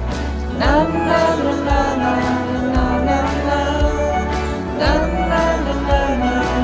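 Hindi song between sung lines: a steady beat and bass under held melody notes, with a voice sliding through a phrase about half a second in and again near five seconds.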